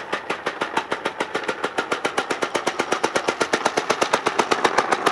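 3D-printed four-stroke compressed-air engine driving a small RC car, running on a 2 L bottle charged to 90 PSI. It makes a rapid, even train of sharp pops, one per stroke, that speeds up from about seven to about ten a second.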